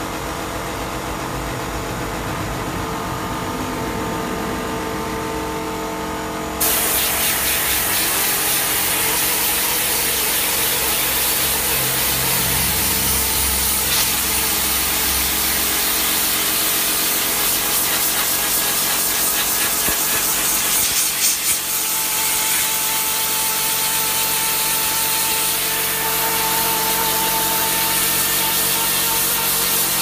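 Pressure washer running, with its motor humming at first; about six seconds in the water spray starts with a sudden loud hiss that then runs steadily, rinsing the detergent out of an air conditioner's heat-exchanger fins.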